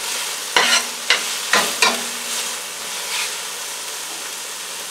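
Chopped cabbage and other vegetables sizzling in oil in a stainless steel frying pan while being stirred, the utensil clicking and scraping against the pan a few times in the first two seconds. After that the sizzle carries on steadily.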